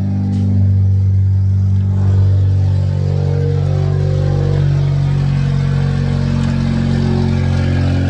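Car engine idling steadily and loudly.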